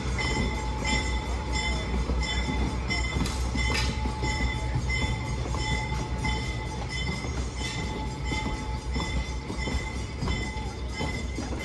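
Railroad grade-crossing signal bell ringing steadily at about two strokes a second, over the low rumble of wooden passenger coaches rolling slowly past on the track.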